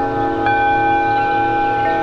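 Several metal singing bowls struck with mallets, their tones ringing on and overlapping. A slow pulsing hum runs underneath. A fresh strike adds higher tones about half a second in, and another comes near the end.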